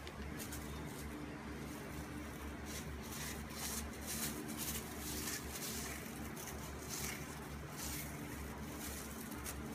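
Thin plastic grocery bags crinkling and rustling in short, irregular crackles as a cat pushes its face into them, over a steady low hum.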